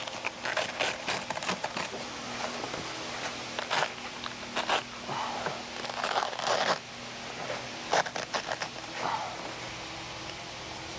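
Irregular scraping, rustling and small clicks of hands and a cloth rag working at the plastic side trim of a car seat, over a low steady hum.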